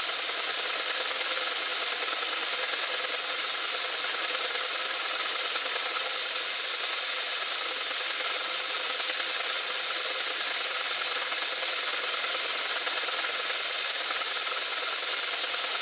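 Gauge one three-cylinder model locomotive chassis with Gresley conjugated valve gear running on compressed air: a steady, even hiss of air through the cylinders, with a faint rubbing rattle of the motion under it.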